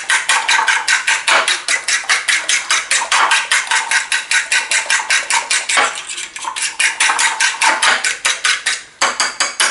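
Eggs being beaten by hand in a porcelain bowl: a utensil clicks against the bowl rapidly and evenly, about six strokes a second, with a short break near the end.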